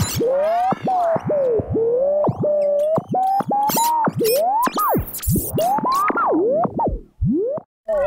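Old radio being tuned across the dial: whistling tones that slide up and down in pitch as stations are passed, broken by crackles and clicks, with a brief drop-out near the end.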